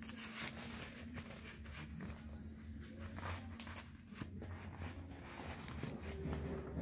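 Handling of a Hayabusa T3 Kanpeki leather boxing glove as its hook-and-loop wrist strap is pulled and pressed closed: a string of short, irregular scrapes and rustles, over a low steady hum.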